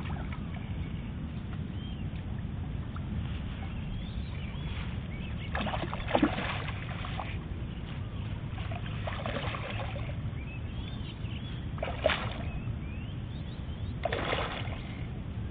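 Patin (Pangasius catfish) splashing as they break the surface of the pond: four short splashes a few seconds apart, over a steady low rumble.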